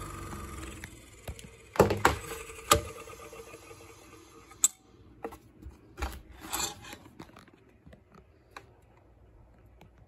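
Knocks and clicks as a garbage disposal unit is handled and turned over by hand. Several sharper knocks come in the first three seconds, then lighter scattered clicks and rubbing.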